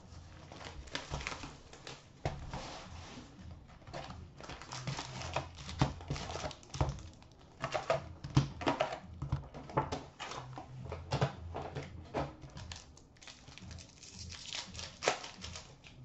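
A sealed box of hockey trading cards being opened and its shiny wrapped packs pulled out and stacked: irregular rustling and crinkling of cardboard and pack wrappers, with many small taps and clicks.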